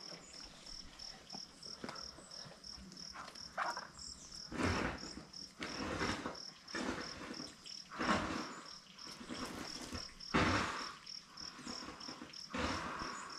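Heavy breaths drawn in and pushed out through a snorkel mouthpiece on the end of a 12-metre garden hose, about one every two seconds; the long hose makes the air hard to pull. A high-pitched insect chirp pulses steadily behind, about three times a second.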